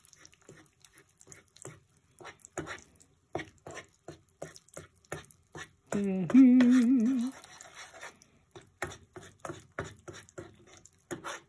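Metal spoon stirring and scraping a hot olive-oil-and-flour roux in a small saucepan, a steady run of quick taps and scrapes against the pan. About six seconds in, a short wavering voice sound, the loudest thing here, lasts just over a second.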